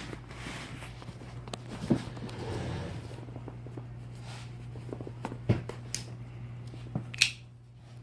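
Cardboard box being handled and turned: scattered light taps, clicks and rustles, with a steady low hum underneath.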